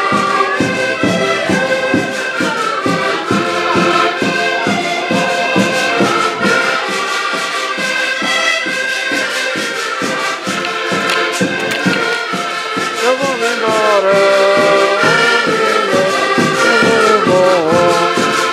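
A band of accordions playing a lively traditional folk tune together, chords and melody over a steady, quick beat.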